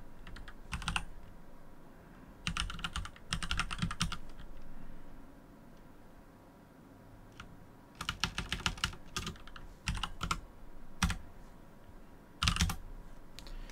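Computer keyboard typing: several short bursts of rapid keystrokes separated by pauses, with a few single key presses in between.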